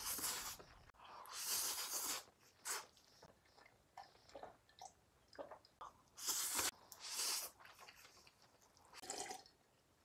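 Yakisoba noodles slurped up from chopsticks in about five short, hissy bursts, with wet chewing and mouth clicks between them.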